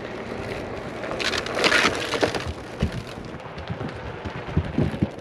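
A Onewheel's tire rolling onto and across a wooden plank footbridge, with scattered knocks and rattles from the boards as it passes over them.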